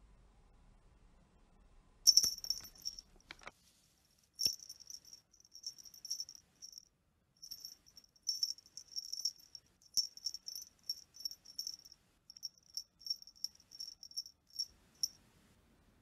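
A small jingle bell on a cat teaser toy jingling in quick, uneven shakes as the toy is waved, with a few short pauses, starting about two seconds in and stopping near the end. A light knock about four seconds in.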